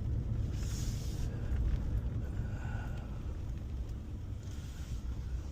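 Four-wheel-drive truck driving slowly, a steady low engine and road rumble, with a brief hiss about half a second in and again near the end.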